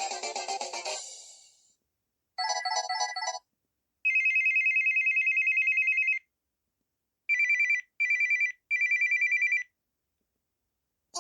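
Samsung Array mobile phone's built-in ringtones and alert tones played one after another: the end of a melodic tone, a short run of beeping notes, then an electronic trilling ring, once for about two seconds and then in three shorter bursts.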